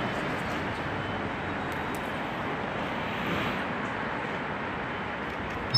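Steady city street traffic noise: an even rush of passing vehicles, with no single vehicle standing out.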